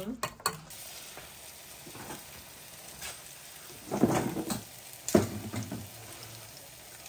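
Banana fritters frying in shallow oil in a pan, with a steady sizzle. A few short clinks come at the very start, and two louder knocks about four and five seconds in.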